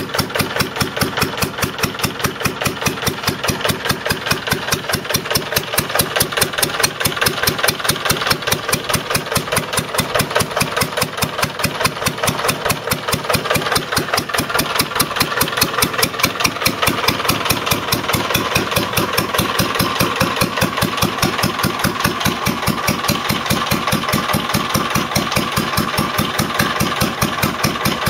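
1931 Conord F2 petrol stationary engine running steadily with an even, rapid firing beat while belt-driving a DC generator under electrical load. A steady whine joins about two-thirds of the way through.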